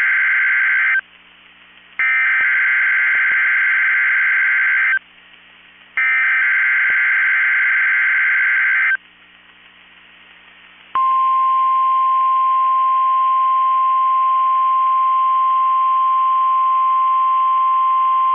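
NOAA Weather Radio emergency alert signalling: the warbling digital SAME header bursts, the end of one burst and then two more of about three seconds each with a second of quiet between, followed about eleven seconds in by the steady single-pitch 1050 Hz warning alarm tone.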